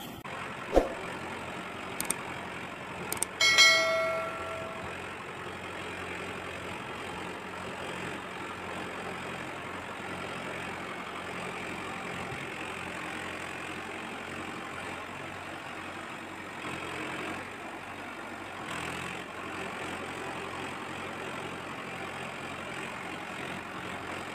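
Steady tractor engine idling sound, running evenly throughout. A few sharp clicks come early, and a short bell-like ring sounds about three and a half seconds in.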